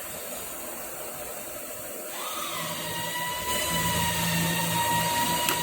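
Electric motor of a machine tool switching on about two seconds in, its pitch dropping briefly and then settling into a steady whine as it runs.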